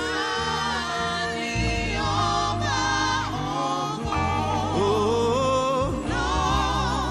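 Live gospel worship music: several voices sing a praise song together with wavering, held notes over sustained bass notes that change every second or two.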